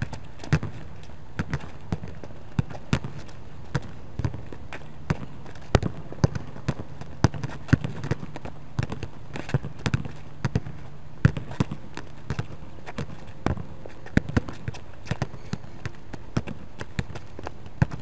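Soccer balls being volleyed against a board wall and bouncing back onto asphalt: a string of sharp, irregular thuds, about one or two a second, from two balls in play at once.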